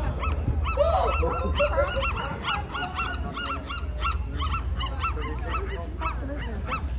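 California sea lions barking in a dense, overlapping chorus, several short calls a second.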